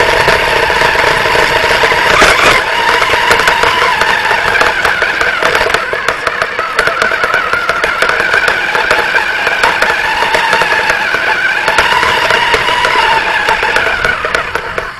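Radio-controlled car's motor running hard close up, its high pitch rising and falling, with many clicks and rattles from the chassis over the ground. It drops off near the end.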